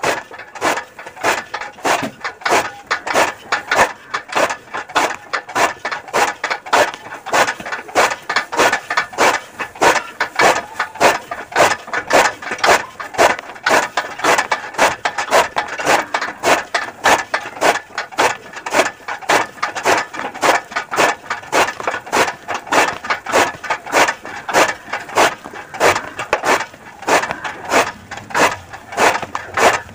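Hand-turned chaff cutter chopping green fodder: the heavy flywheel swings the blades through the grass in a steady rhythm of sharp chops, about two a second.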